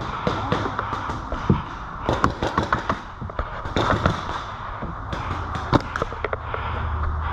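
Magazine-fed paintball markers firing, with irregular sharp pops and now and then a quick string of shots.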